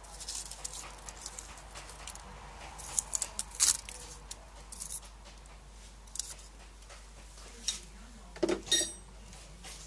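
Light clicks and rustles of a hand dropping dried bay leaves and spices into a clay pot and arranging them, with a cluster of sharper clicks about three to four seconds in and a short louder sound near the end.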